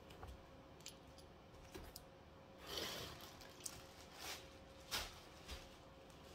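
Faint handling noises: scattered light clicks and knocks, with a brief rustle a little before the middle, over a faint steady hum.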